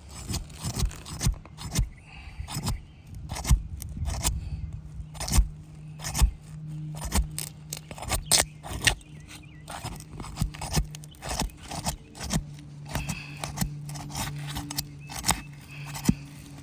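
Asphalt roof shingle being worked loose by hand with tools: irregular clicks, knocks and scrapes as the tightly sealed new shingle is pried up from its sealant, over a steady low hum.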